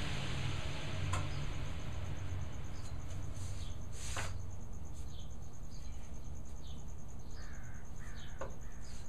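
A few sharp clicks and knocks of tools being handled at a workbench: about a second in, a louder one at four seconds and one near the end. A bird calls repeatedly in short falling notes through the second half.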